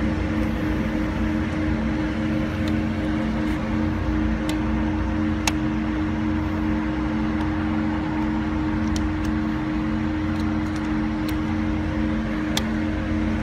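Steady low mechanical hum inside a BMW 5 Series (F10) cabin, with about ten small sharp clicks scattered through it as the front dashboard air vent's plastic trim is worked by hand.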